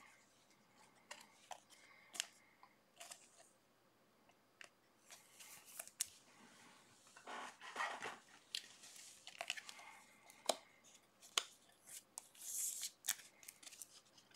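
Trading cards being handled: faint light clicks and short papery swishes as the cards are slid, flicked and set down, scattered irregularly through the stretch.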